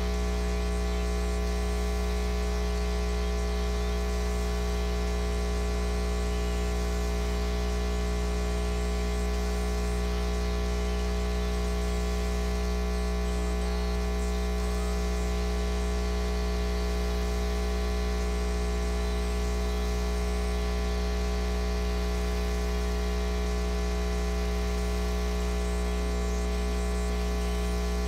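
Steady electrical hum with a buzzy stack of higher tones over a hiss, never changing in pitch or level.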